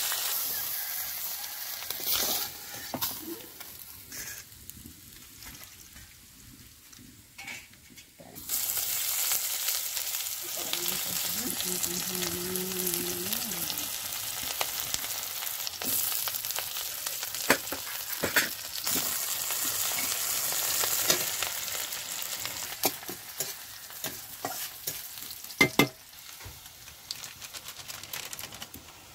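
Hot oil sizzling in an iron kadai as pieces of rohu fish fry, and later sliced onion and garlic, with occasional sharp clicks and scrapes of the spatula on the pan. The sizzle drops away for a few seconds early on, then comes back louder.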